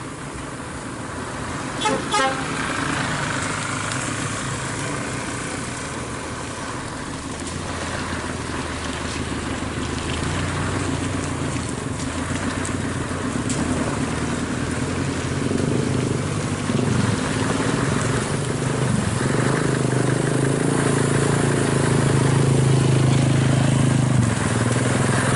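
Scania R580 tractor unit's diesel engine running as the truck slowly approaches, growing steadily louder. A brief horn toot sounds about two seconds in.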